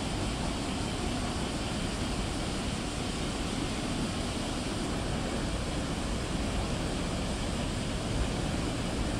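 Steady outdoor rumble with a lighter hiss above it, even and unbroken, with no distinct events: wind and water or distant engine noise.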